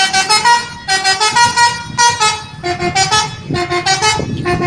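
Indonesian bus 'telolet' horn, a multi-tone air horn playing a quick tune of short stepped notes, phrase after phrase with brief breaks between.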